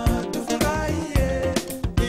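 Background music with a steady drum beat and a melody over it.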